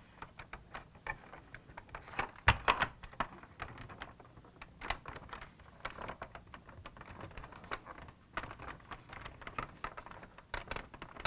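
Plastic body of a 1983 Kenner Knight 2000 toy car being handled and pressed onto its chassis, giving irregular light clicks and taps as the door-frame tabs are worked into their clips. One sharper knock comes about two and a half seconds in.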